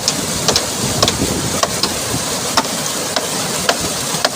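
Steady rush of a mountain stream, with sharp knocks at irregular intervals, roughly two a second.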